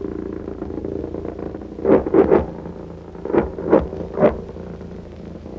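V1 flying bomb's pulsejet engine droning steadily and fading away, while anti-aircraft guns fire six loud shots in two quick groups of three, about two seconds in and again between three and four seconds in.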